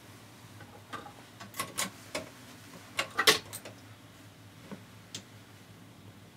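1950s 45 rpm record player's automatic changer cycling: a string of mechanical clicks and clunks as a record drops from the spindle onto the turntable and the tonearm moves into place, over a faint steady hum.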